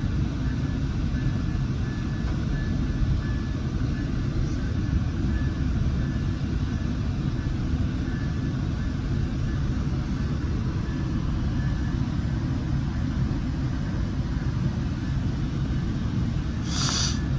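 Steady low rumble of a Coaster commuter train running along the line, heard from inside the passenger coach, with a faint steady whine and one short sharp noise near the end.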